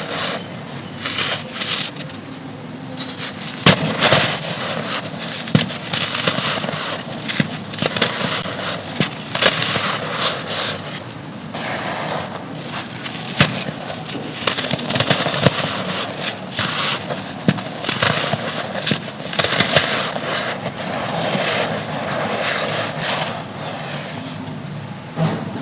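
Dry chunks of red dirt being crushed and crumbled: a dense run of crunching and crackling with frequent sharp snaps and dusty hissing as the chunks break apart.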